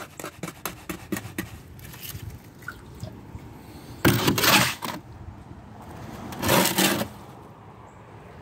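Flat shovel scraping wet cement out of a wheelbarrow, two scoops, about four seconds in and again near seven seconds, each about a second long. Before them, a quick run of small clicks and taps as a shovelful of cement is dropped into the trench.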